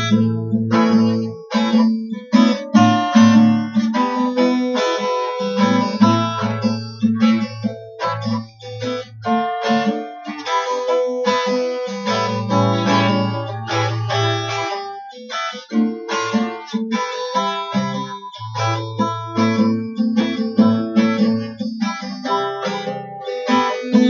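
Instrumental music led by guitar, with plucked and strummed notes over a steady bass line.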